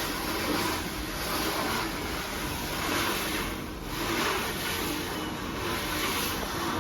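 A steady rushing hiss that swells and fades slowly, like wind or surf, made as a hand-made classroom sound effect.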